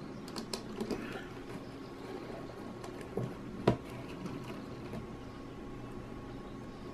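Hands gathering a bundle of thin red and black hookup wires over a wooden panel: faint rustling with a few light clicks and one sharper click about three and a half seconds in.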